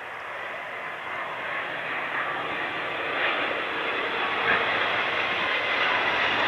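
Jet airliner's engines growing steadily louder as the aircraft draws nearer: a rushing noise with a steady whine on top.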